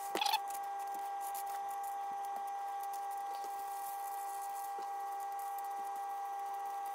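Table salt shaken from a cardboard box onto squid pieces on newspaper, heard as a faint patter and rustle, with a few brief handling noises right at the start. A steady whine of several fixed tones runs underneath throughout.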